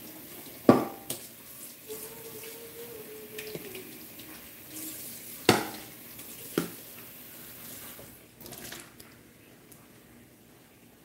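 Dishes and metal utensils clanking in a kitchen sink, with sharp knocks about a second in and again about five and a half seconds in, over running tap water that fades near the end.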